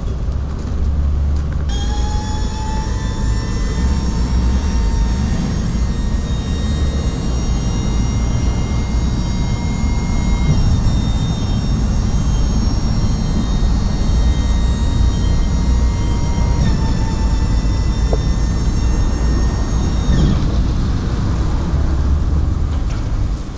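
Electric-hydraulic tipper pump on a Ford Transit caged tipper whining steadily as it raises the tipper body. The whine starts about two seconds in, rises slightly in pitch at first, shifts a little near the end and stops about twenty seconds in, over a steady low rumble.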